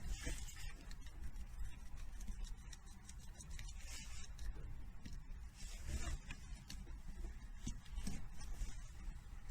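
Rustling and scattered light clicks and knocks, like things being handled, over a low rumble.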